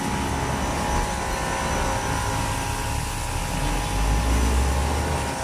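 Electric pressure washer running with its trigger held: a steady motor whine under the hiss of the water jet striking a car tyre and wet pavement. The motor runs only while the trigger is pressed, as the machine starts and stops automatically with it. A low rumble swells about four seconds in.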